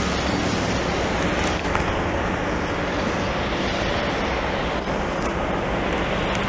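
Steady running noise of heavy diesel dump trucks and snow-removal machinery, with a low engine hum under an even wash of traffic noise.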